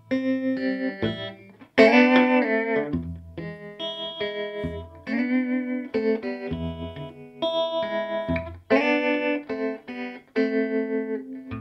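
Electric guitar music: picked notes and chords with a fast, even pulse in volume.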